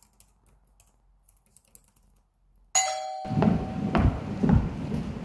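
Faint computer-keyboard typing. About two and a half seconds in, it is cut off by a short bell-like chime with several pitches, like a doorbell ding. Then come walking footsteps, about two a second, over outdoor background noise.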